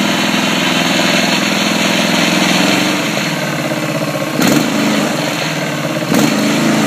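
Freshly rebuilt Honda GCV160 single-cylinder lawn mower engine running silky smooth just after its first start, with its speed set by hand at the throttle linkage. The engine note is steady, then drops a little about three seconds in, and two brief clicks come near the middle and the end.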